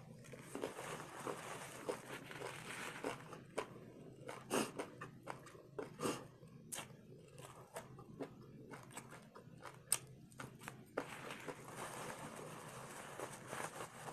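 Close-up chewing of a hard-fried corn taco shell: irregular crunches and wet mouth clicks, thickest from about three to eleven seconds in.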